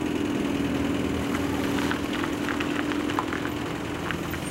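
A car's engine running close by with a steady hum as the car pulls in and stops, easing off near the end.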